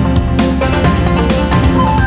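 Background music: an electronic track with a steady beat and held synth notes.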